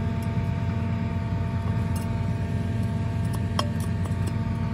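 Tractor engine idling steadily, with a couple of light metallic clinks of hand tools against the grain drill's disc assembly about three and a half seconds in.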